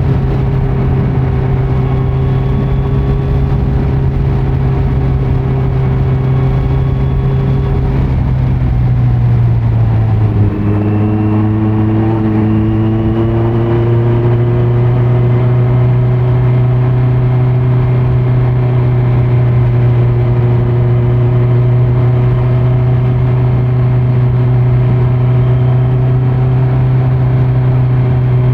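A 2018 Kawasaki Z900's inline-four engine, breathing through a Leo Vince muffler on stock headers with the dB killer removed, running under way on the road. The engine note holds steady, dips briefly with a short click about ten seconds in, then climbs gradually and settles at a steady pitch.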